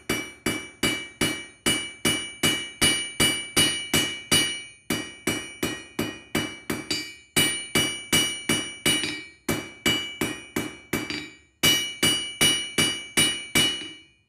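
Blacksmith's hammer striking hot steel on an anvil to draw out a bar, about three blows a second, each blow ringing. The blows come in runs with brief pauses between them.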